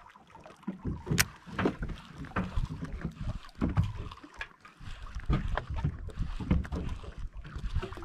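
Water slapping and knocking irregularly against the hull of a small boat at sea, with wind on the microphone.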